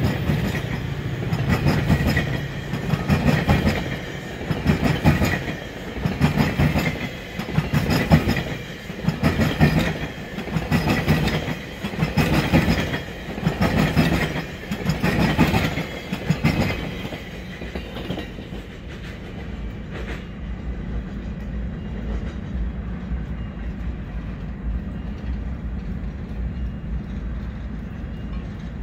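GO Transit bilevel commuter coaches rolling past close by, with a rhythmic clickety-clack of wheels over the rails that swells about every second and a half. About 17 seconds in, the last coach clears and only a steady, quieter low rumble remains.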